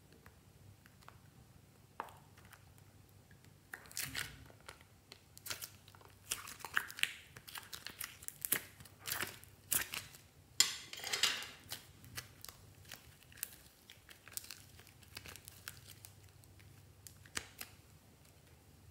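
Close-up handling sounds of a small plastic case and pink slime add-ins: sharp plastic clicks with scratchy crinkling and tearing noises, busiest from about four to twelve seconds in.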